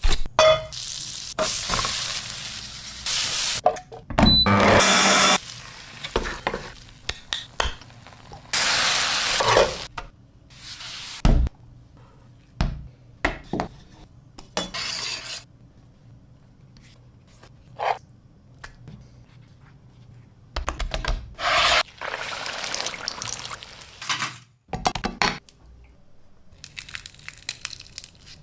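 A string of cooking sounds while making crispy chicken tenders: utensils and dishes clinking, stirring, and short bursts of hissing frying sizzle, each lasting a second or two with brief pauses and sharp clicks between.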